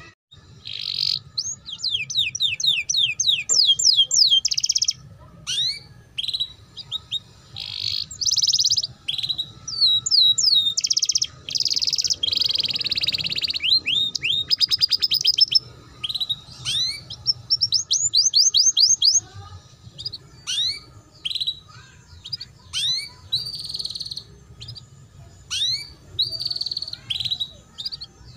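Domestic canary singing a long, fast twittering song in the ngeriwik style. Rapid trills and runs of repeated downward-sweeping notes come in phrases separated by short pauses.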